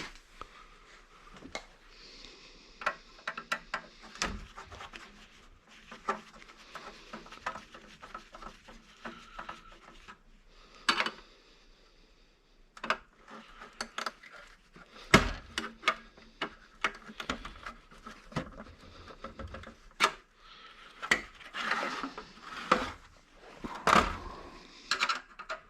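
Irregular clinks, knocks and rattles of small metal and wooden objects being handled and set down, with some rubbing in between; the sharpest knocks come about 15 and 24 seconds in.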